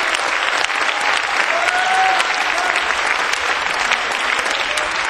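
Congregation clapping their hands: dense, steady applause from many people.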